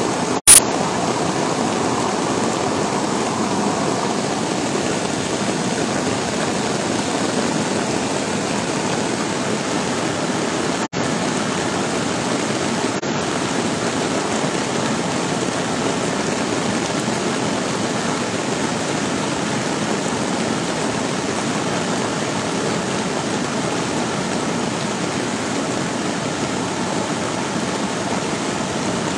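Fast, muddy floodwater rushing and churning over a concrete channel wall, a constant rush of water with rain falling. A sharp click about half a second in is the loudest moment.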